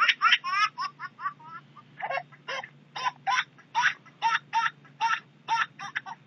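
Laughing ringtone played back: a high, creepy laugh in short repeated 'ha's, a quick run for about the first second and a half, then spaced out to about three a second.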